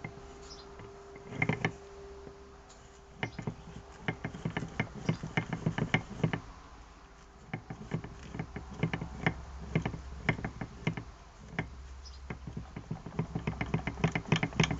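Irregular mechanical clicking and ticking, coming in uneven clusters, with a faint steady hum underneath at times: an unexplained abnormal noise from a mechanism.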